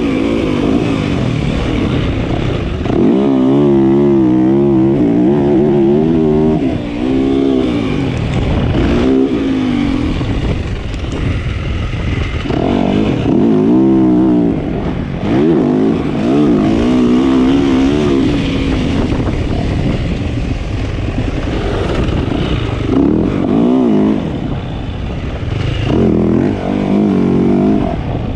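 A 65cc two-stroke youth motocross bike engine revving, its pitch climbing and dropping again and again as the throttle is worked and the bike is ridden around the track.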